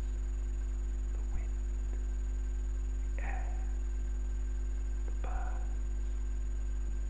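Steady low electrical mains hum, with faint whispering twice, about three seconds and five seconds in.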